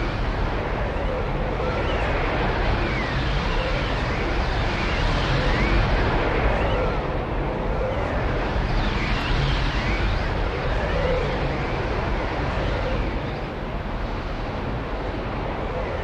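Swirling vortex sound effect: a dense, steady rushing noise over a deep rumble, with swooping tones that rise and fall every second or two.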